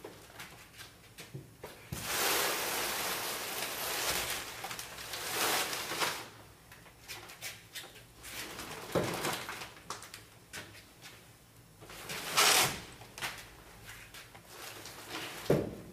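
Framed paintings being handled and moved: a rustling scrape of about two seconds, then several short bumps and knocks of canvas and frame, the loudest about three quarters of the way through.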